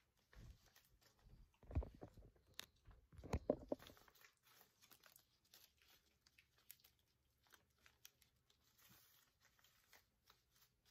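Folded paper money crinkling and rustling in the hands close to the microphone, with soft knocks of handling. It is loudest in the first four seconds, then thins to faint scattered ticks.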